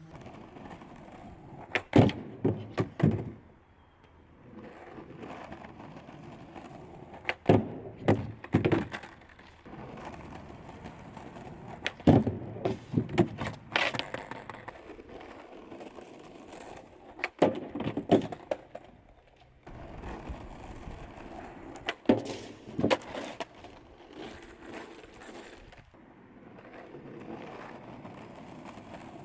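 Skateboard rolling up and ollieing onto a DIY manual pad, again and again: a steady wheel hiss between attempts, then a cluster of sharp clacks and thunks as the board pops, lands and rolls off, about every five seconds.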